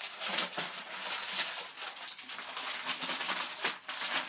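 Plastic bag crinkling and rustling as it is handled, a dense run of irregular small crackles.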